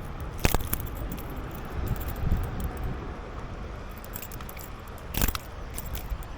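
Two sharp clicks about five seconds apart over a steady low rumble: handling noise while dealing with a freshly caught small fish.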